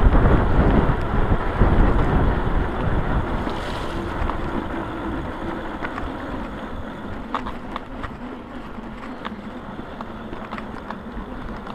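Wind rushing over the microphone on a moving e-bike, loudest at first and easing off over the first several seconds. It leaves a low hum with a few light clicks.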